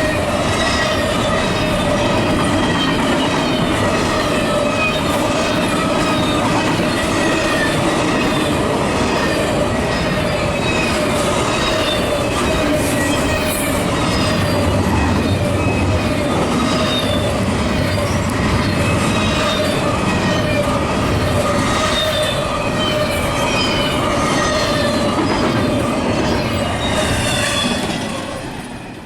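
Double-stack intermodal freight cars passing at speed: a steady loud rush and clatter of steel wheels on rail, with high wheel squeal. The sound falls away about a second before the end as the last car goes by.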